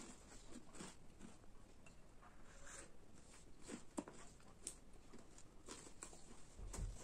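Near silence: room tone with a few faint, scattered light clicks and taps.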